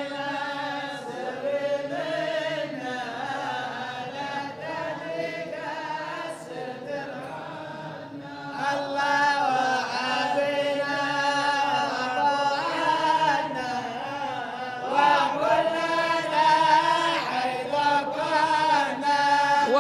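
A group of male voices chanting an unaccompanied Islamic devotional qasida together, holding long drawn-out notes between lines of verse. The chanting grows louder about eight seconds in.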